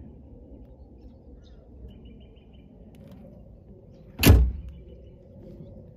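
One loud, sharp thump a little over four seconds in, dying away within half a second, over a low steady outdoor rumble with a few faint bird chirps.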